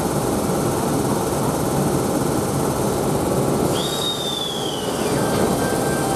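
Double-deck electric passenger train moving slowly past along the platform with a steady rumble. About four seconds in, a high squeal jumps up, then slides down in pitch over about a second and a half.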